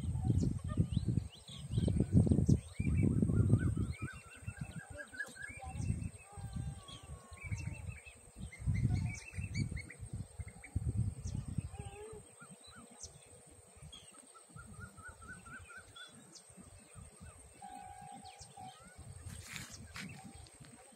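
Birds chirping and calling, with several quick repeated trills. Low gusts of wind buffet the microphone, loudest in the first few seconds and dying away about halfway through.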